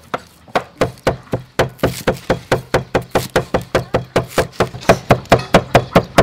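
Cleavers chopping green onions and mincing garlic on wooden cutting boards: a fast, even run of sharp knocks of blade on board, several a second, starting about half a second in.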